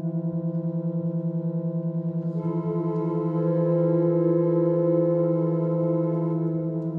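A century-old pump organ (reed harmonium) holding a sustained drone chord that pulses a few times a second as its reeds beat against each other. About two and a half seconds in, higher notes join and the chord swells, then they drop away near the end.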